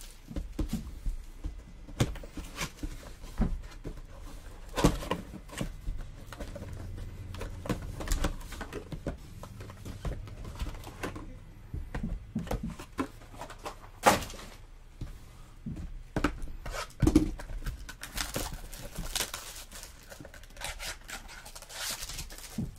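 Cardboard trading-card boxes and packs being handled and opened by hand: scattered taps, clicks and rustles, with a few firmer thumps.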